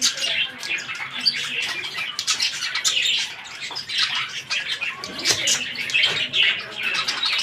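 Several cockatiels chirping and chattering continuously, with many calls overlapping.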